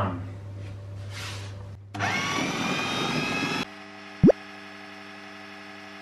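Food processor motor spinning up with a rising whine and running for a second or two. It then drops to a steadier hum, and a short, loud rising pop comes about four seconds in.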